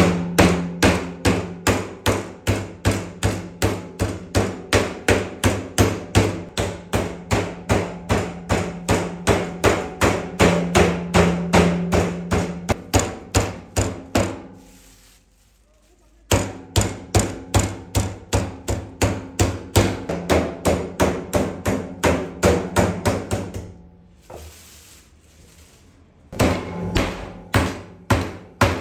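Metal meat tenderizer pounding beef through a plastic bag on a cutting board: steady, evenly spaced blows about three a second. The pounding stops briefly around halfway through and again near the end.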